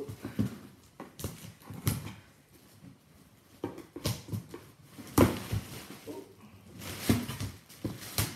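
A cardboard shipping box being opened by hand: packing tape pulled from the seam, cardboard flaps pushed open and plastic air-pillow packing crackling as it is pulled out. It comes as a series of irregular sharp knocks, scrapes and rustles, the loudest about five seconds in.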